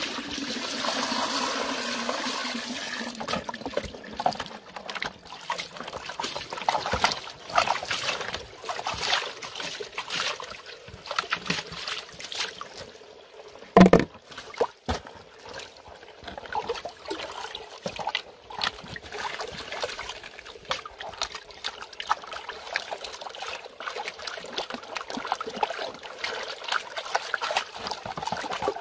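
Water splashing and sloshing in a plastic tub as a gold pan of gravel is washed and shaken under the water. Water runs steadily for the first few seconds, and there is one loud knock about halfway through.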